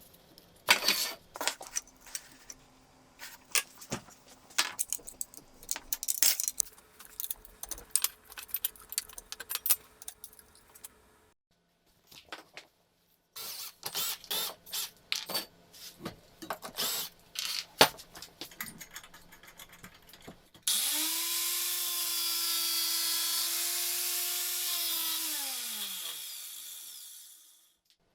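Clicks and knocks of small metal workshop parts being handled. Then a handheld power tool starts suddenly, runs steadily at full speed for about five seconds, and spins down with falling pitch after it is switched off.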